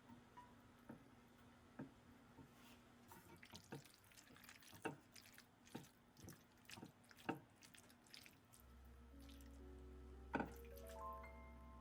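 Faint, irregular small clicks and taps, about one or two a second. Soft music comes in late, with a low drone and a run of rising notes.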